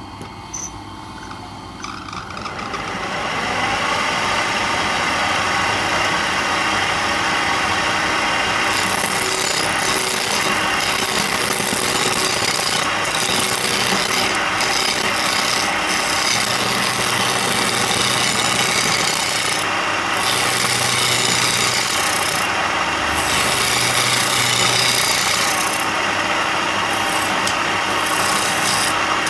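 Power tool abrading wood, a continuous rasping that builds up over the first few seconds and then runs steadily, with a few brief breaks in its hiss.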